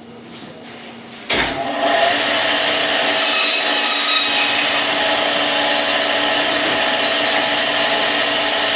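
Band saw switched on about a second in, then running steadily: a loud, even machine sound with a constant whine over it.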